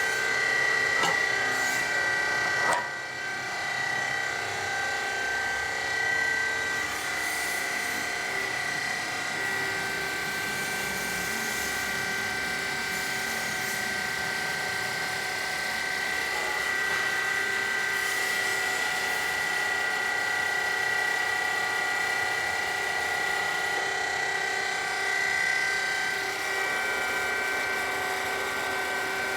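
Baling press machine for cardboard and scrap running, its motor giving a steady high whine, with a single knock about three seconds in.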